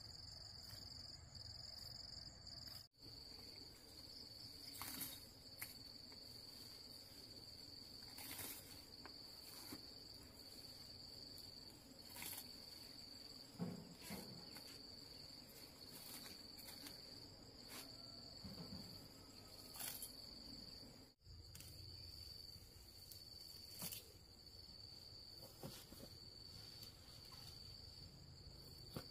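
Insects chirring in one steady, unbroken high-pitched drone, with a few faint clicks and rustles over it. The sound drops out for an instant twice, about three seconds in and again about twenty-one seconds in.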